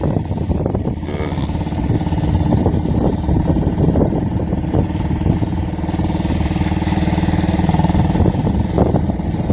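Motorcycle engine running steadily while riding, with a dense low rumble under it.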